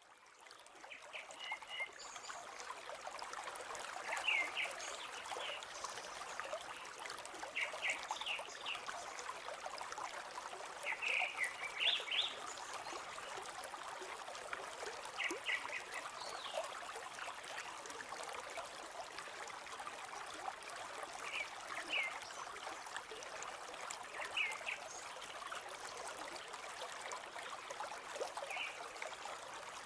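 Flowing river water, a steady rushing and trickling that fades in over the first couple of seconds. Bird chirps come every few seconds in short groups of two or three high notes.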